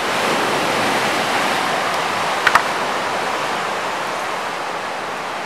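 Steady rush of sea surf breaking beneath the pier, with one brief sharp chirp about two and a half seconds in.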